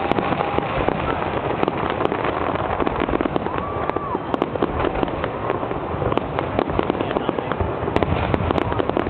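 Fireworks going off without pause: a dense run of cracks and bangs in quick succession over a steady background of crowd noise.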